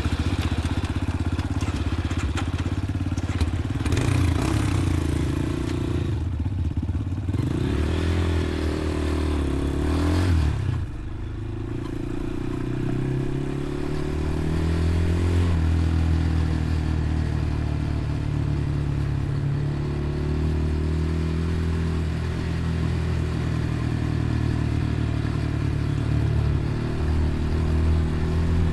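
Dirt bike engine running while being ridden along a trail. It revs up about eight seconds in and drops back sharply around eleven seconds, then holds a fairly steady, changing drone.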